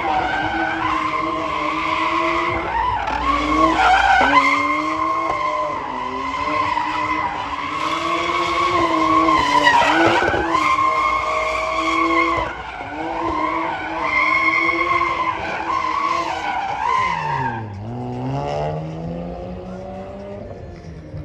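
BMW F22 2 Series coupé drifting: its engine held at high revs, the pitch wavering as the throttle is worked, over the skidding and squeal of the rear tyres. Near the end the revs drop sharply and climb again.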